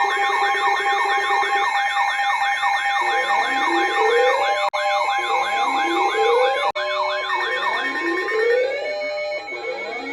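Several electronic siren tones layered at once: a fast warbling yelp cycling about three times a second over steady held alert tones. About three seconds in, rising siren sweeps join, repeating roughly every second and a half. The mix thins out near the end.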